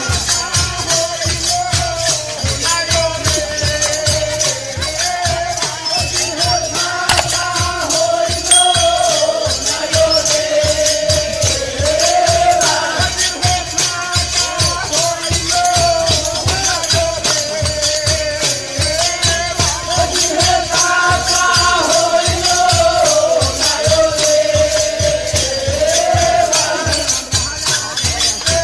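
Instrumental folk music for a Murshidi song: a sustained, wavering melody line over a quick steady drum beat and jingling hand percussion such as a tambourine.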